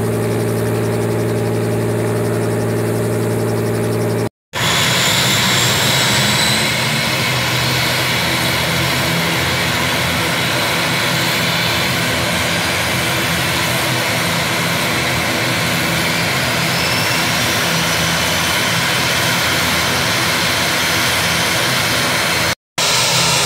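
A small helicopter's engine running at idle, a steady hum, for about four seconds; then, after a cut, a twin-turboprop ATR airliner running its engines on the apron, a loud steady rushing drone with thin high whines.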